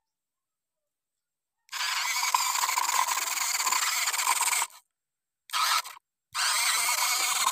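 Small electric gear motor and drivetrain of a toy tractor model running with a harsh, high-pitched grinding whine as it hauls two loaded trailers. It starts about two seconds in and cuts out twice briefly around the middle before running on.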